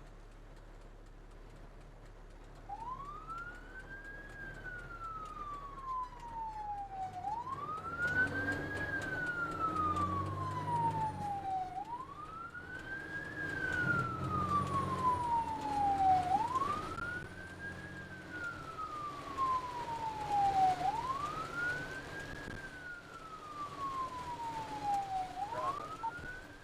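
Ambulance siren sounding its wail, coming in a few seconds in. Each cycle is a quick rise in pitch and a slower fall, repeating about every four and a half seconds, over the low rumble of the vehicle under way.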